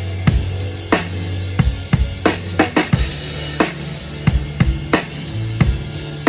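Drum kit played in a steady groove, kick, snare and cymbals, over a held low bass line that shifts to a new note about three seconds in: a band's sound check.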